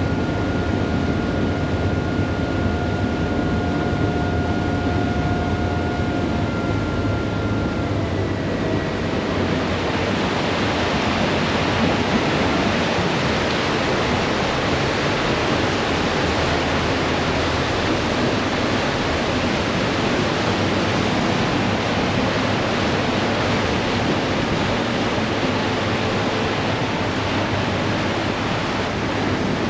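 Ferry under way: a steady low engine hum under the rush of water churned up behind the boat. A steady whine over it stops about eight seconds in, and from then on the water rush sounds brighter and fuller.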